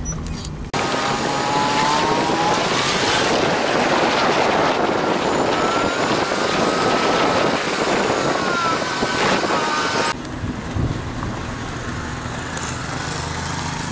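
Car driving: a loud, even rush of wind and road noise sets in abruptly about a second in, with a faint wavering whine in it. Near the end it gives way to the steadier low hum of the car's engine.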